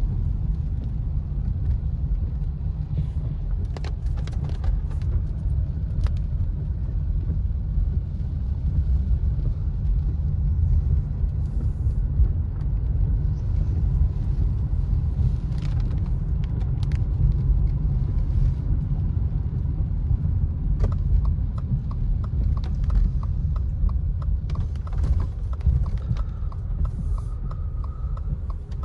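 Car cabin road noise while driving on a rain-wet road: a steady low rumble of engine and tyres. A regular light ticking comes in for the last several seconds.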